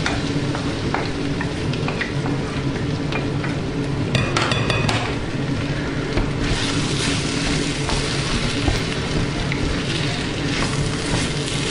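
Rice frying in oil in a stainless-steel wok while being stirred: a steady sizzle with scrapes and clicks of the spatula against the metal, and a quick run of taps about four seconds in.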